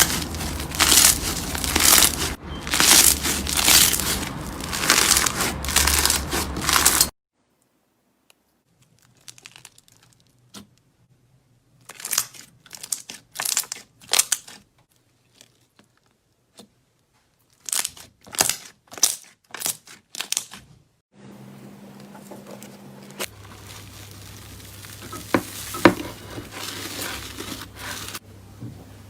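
Slime being squeezed, pressed and stretched by hand, making crinkling, crackling and squishing sounds. A dense, loud run in the first seven seconds gives way to separate short pops and squishes with quiet gaps, then softer handling near the end.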